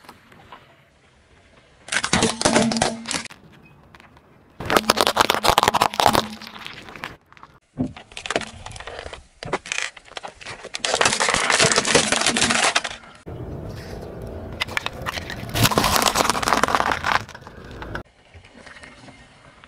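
A car tyre rolling over objects on asphalt and crushing them: several separate bursts of cracking and crunching with short pauses between, one of them a plastic model car splitting under the wheel.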